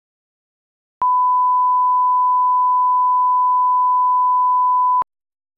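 A 1 kHz line-up test tone of the kind played with colour bars: one steady, pure beep that switches on about a second in and cuts off after about four seconds, with a click at each end.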